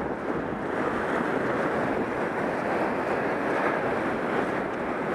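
Ocean surf breaking on a sandy beach, a steady rush, mixed with wind buffeting the microphone.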